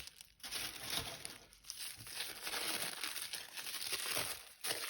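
Packaging crinkling and rustling in handling as the next item is dug out and unwrapped from the box, a dense run of small crackles with a few short pauses.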